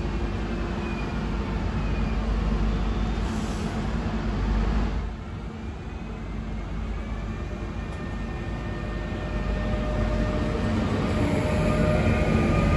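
DSB Litra ER (IR4) electric multiple unit train running along the platform with a steady rumble of wheels on rail. The sound drops abruptly about five seconds in, then grows louder as the train passes close, with its electric drive whining and rising in pitch near the end as it picks up speed.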